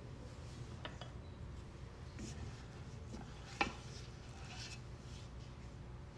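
Faint scraping of a spatula working thick cookie dough off a stand mixer's paddle in a stainless steel bowl, with a few light knocks against the metal, the sharpest about three and a half seconds in.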